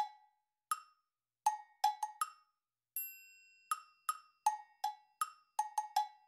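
Light background music of hollow, pitched wood-block notes in a bouncy pattern, with a single bell chime about three seconds in that rings on briefly.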